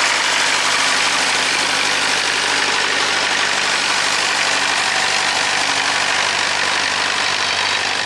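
Tractor engine running steadily at a constant speed.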